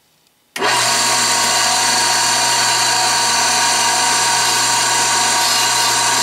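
Lisle 91000 drill grinder running, its wheel grinding the lip of a steel drill bit. A loud, steady hum and hiss that starts abruptly about half a second in.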